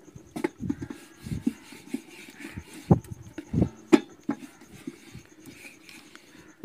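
A run of irregular dull knocks and thumps, uneven in spacing, the loudest about three and four seconds in. A faint, steady, high pulsing tone runs underneath.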